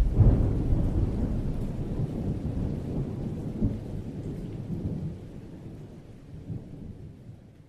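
Intro sound effect: a deep rumble with scattered crackles, loudest at the start and slowly dying away, fading out near the end.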